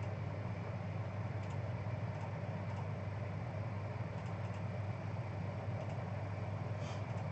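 Steady low background hum, with a few faint computer-mouse clicks scattered through it as a list randomizer is re-run.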